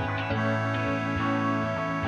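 Background music: plucked guitar notes over sustained chords.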